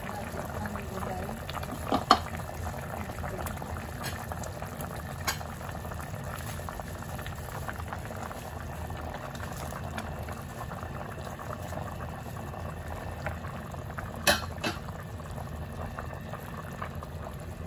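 Pot of sinigang salmon soup boiling steadily on the stove, the broth bubbling. A few sharp clinks of a utensil against the pot cut through: a pair about two seconds in, one around five seconds, and another pair near the end.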